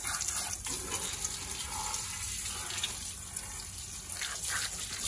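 Stream of water from a hose spraying onto a car's rear tyre and alloy wheel and splashing onto the tiled floor, a steady hiss.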